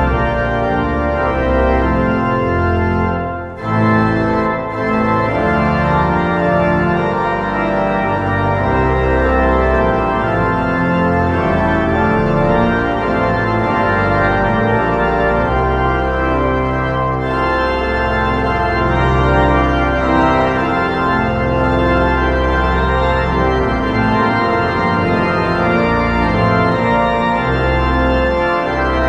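Large 1963 Casavant Frères church pipe organ playing a hymn in full, sustained chords over a deep pedal bass. The sound briefly lifts about three and a half seconds in, a short break between phrases, then the chords carry on.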